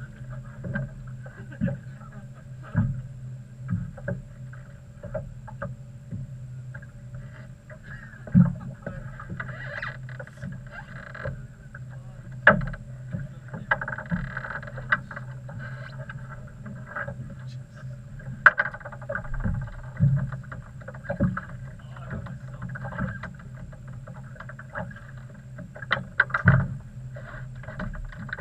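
Sounds aboard a small fishing boat: a steady low hum with frequent irregular knocks and taps on the hull and deck.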